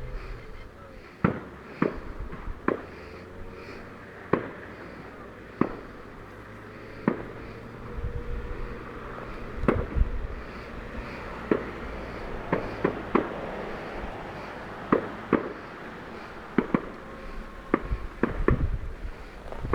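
Fireworks bursting: an irregular series of sharp bangs, coming more often in the second half, over a low rumble.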